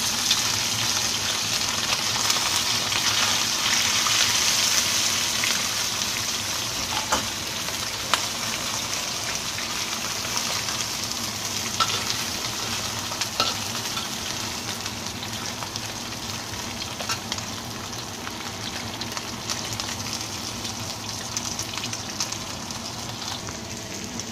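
Whole mullet and sliced ginger sizzling in hot oil in a wok, loudest over the first few seconds after the fish go in and easing off gradually. A few sharp clicks and scrapes of a metal spatula against the wok come through the sizzle.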